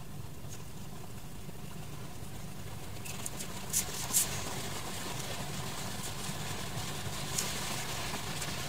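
A steady low hum with a few faint, short rustles and clicks from about three seconds in, as a yarn tail is drawn through crocheted stitches with a needle.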